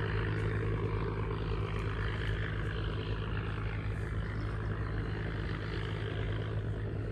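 Large engine running steadily with a low, even drone.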